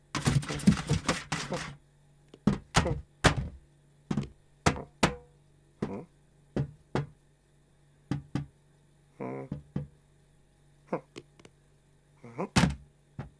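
A series of short knocks and thuds: a quick flurry in the first couple of seconds, then single knocks at uneven intervals. A brief pitched vocal sound comes about two-thirds of the way through.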